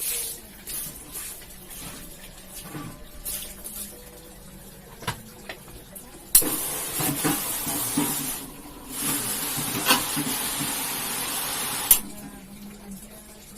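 Water spraying onto a carpet being washed: a loud steady hiss that starts suddenly about six seconds in, falters briefly, and cuts off near the end. Before it, scattered small knocks and splashes of wet handling.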